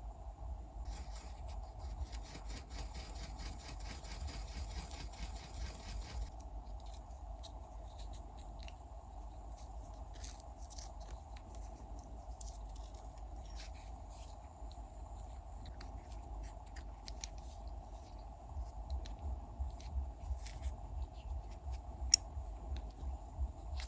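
Hand scraping on a metal part, rhythmic for about five seconds, then scattered light clicks and taps and one sharp tick near the end, over a steady low hum.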